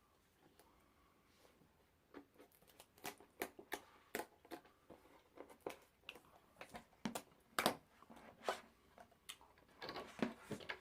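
A retail box and its packaging being opened and handled by hand: irregular light clicks, taps and rustles, starting about two seconds in.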